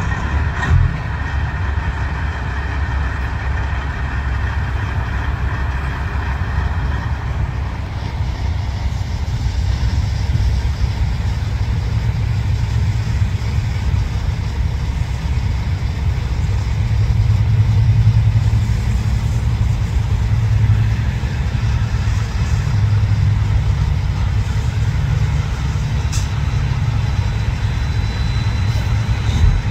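Heavy diesel engines of semi trucks running at low speed as they roll in, a steady low rumble that swells louder around the middle.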